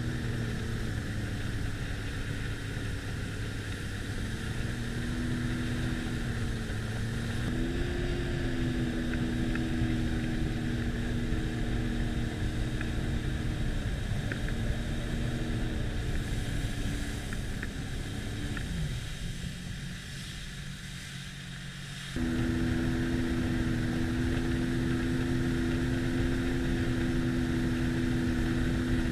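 Sea-Doo personal watercraft engine running at speed over water, holding a steady pitch that shifts a little with the throttle. About two-thirds in, the engine note slides down and quiets as the throttle eases. A few seconds later it comes back suddenly, louder and steady at full pitch.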